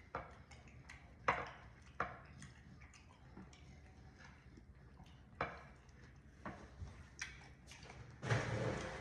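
Sparse small clicks and smacks of eating at the table, a few seconds apart, with a short, louder rustling noise near the end.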